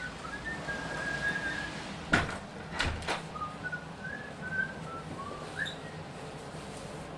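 A person whistling a tune in short, wavering notes, with a door clunking shut twice about two and three seconds in.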